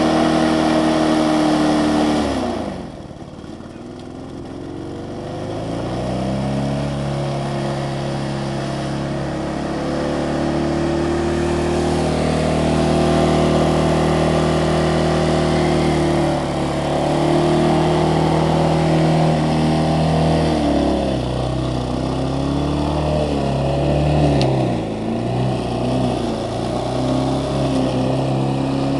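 Lawnmower engine running hard at high revs. About two and a half seconds in its speed and loudness drop sharply, then climb back over a few seconds and hold high. Near the end the speed wavers up and down.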